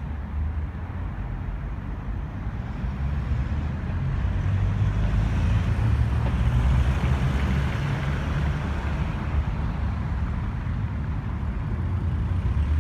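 Road traffic on a city avenue: cars and pickup trucks driving past over a steady low rumble, with one vehicle passing close and loudest around the middle.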